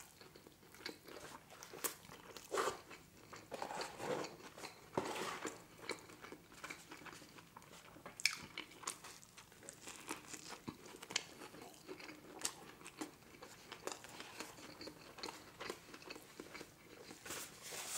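Close-up eating sounds: big bites into a McDonald's Grand Mac burger and wet chewing, with many short, irregular mouth clicks and smacks.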